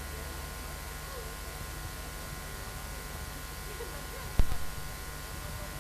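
Steady low electrical hum and buzz with faint distant voices, broken once by a single sharp knock about four and a half seconds in.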